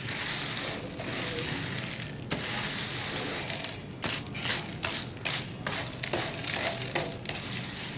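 Nylon hand brush sweeping small horticultural grit ballast back and forth over model railway track and its wooden base, the stones scraping and rattling. About halfway through, the strokes turn short and quick, around three a second.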